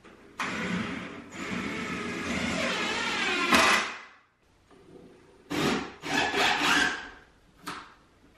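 Cordless DeWalt drill-driver running for about three seconds as it drives a long Torx screw through 3/4-inch plywood into a shelf end, ending in a sharp crack. Several shorter bursts follow in the second half.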